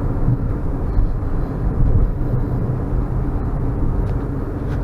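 Steady low rumble of road and engine noise inside the cabin of a car cruising at freeway speed.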